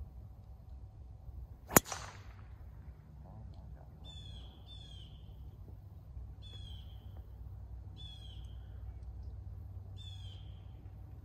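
A driver strikes a golf ball off the tee about two seconds in: one sharp crack, the loudest sound. Then a bird calls five times, short high calls, each a quick run of falling notes, a second or two apart.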